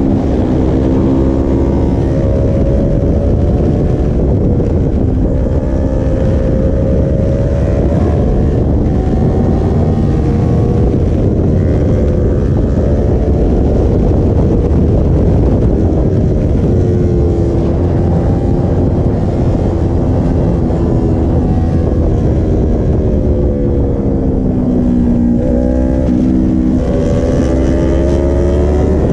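Yamaha sportbike engine heard from the rider's position while riding, its revs repeatedly falling and climbing: a dip about a second in, and another drop then a climb near the end. Wind rumbles on the microphone underneath.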